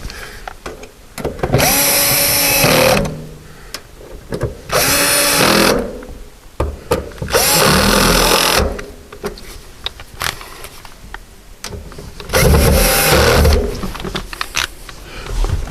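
Power drill-driver running in four short bursts of about a second each, its motor pitch rising and falling, as it drives screws into a car's interior trim uprights.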